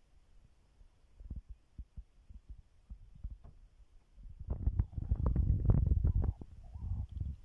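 Low rumbling and irregular thumps on the microphone. The sound is scattered at first and becomes a dense, loud rumble from about halfway through.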